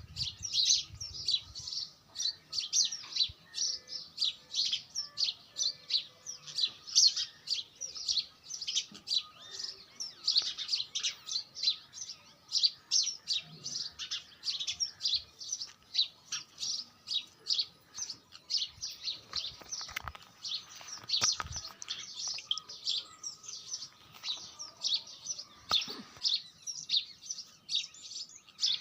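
Bulbul chirping over and over, short high chirps about two or three a second without a break.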